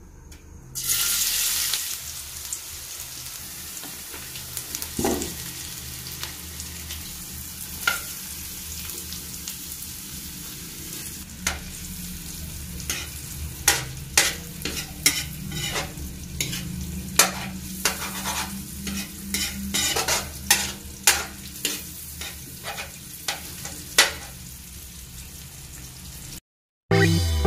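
Minced garlic frying in hot oil and melting butter in a steel wok: a loud sizzle as it goes in about a second in, then a steady sizzle. From about halfway on, a metal spatula clicks and scrapes against the wok as it is stirred. The sound cuts off suddenly just before the end.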